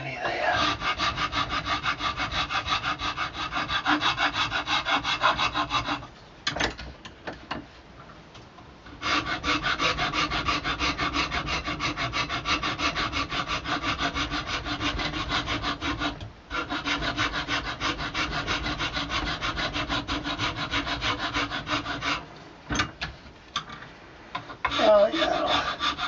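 A file rasping back and forth round the joint between an antler thumbstick head and its wooden shank, blending the joint flush and down to the tape. It comes in two long runs of even strokes with a pause of about three seconds between them. It stops a few seconds before the end, leaving only a few light knocks.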